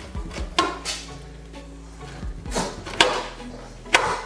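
A spoon scraping the flesh and pith out of Seville orange halves in several short strokes, with two sharp clicks near the end. Background music plays underneath.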